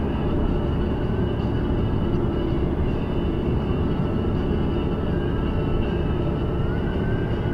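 Steady road noise of a car driving at speed, heard inside the cabin: tyre rumble and engine drone, with a faint whine rising in pitch near the end.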